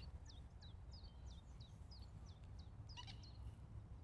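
A small bird singing faintly: a run of short, high notes, each falling in pitch, about three a second, with a brief brighter call about three seconds in.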